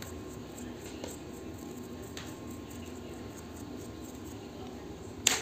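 Small hand file scraping the base of a diecast toy car in light, faint strokes, with one sharp click near the end.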